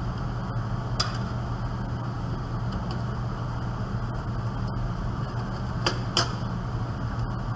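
A few sharp clicks of metal parts being handled as a hard drive is fitted back into a desktop computer case: one about a second in and two close together near six seconds, over a steady low hum.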